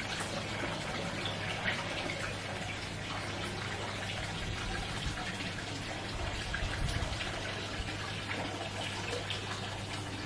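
Water trickling and splashing steadily, with many small drips, over a low steady hum.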